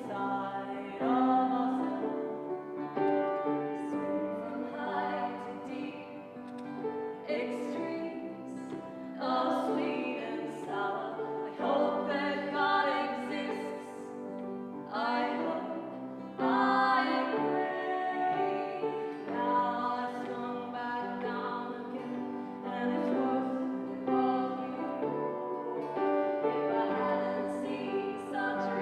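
Live music: a slow song sung by a woman's voice with instrumental accompaniment.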